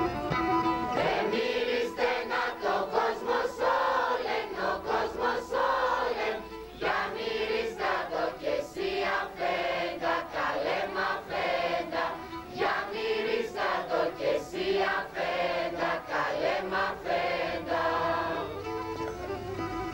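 A mixed choir of children and adults singing Pontic Greek kalanta (Christmas carols). A Pontic lyra plays at the start and takes over again near the end.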